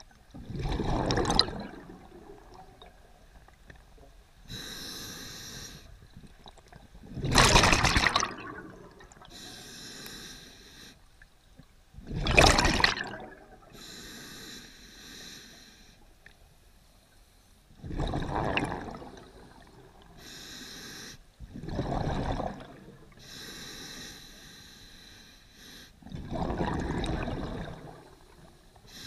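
Scuba diver breathing through a regulator underwater: a quiet hiss on each inhale, then a loud gush of exhaled bubbles, six breaths in all.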